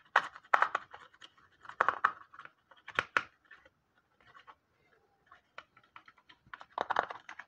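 Plastic syringe stirring and scraping against the inside of a soft plastic cup while mixing medicine, giving irregular scratchy taps in short clusters with a pause of a few seconds in the middle.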